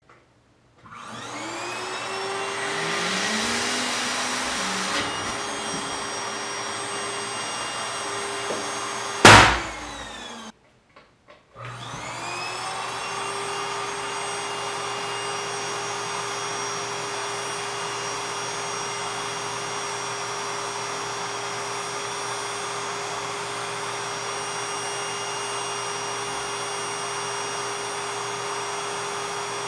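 Electric balloon pump spinning up and running with a steady hum as it inflates a 15-inch latex heart balloon, which bursts with a loud pop about nine seconds in. The pump stops, then starts again about two seconds later and runs steadily, inflating a 36-inch round latex balloon.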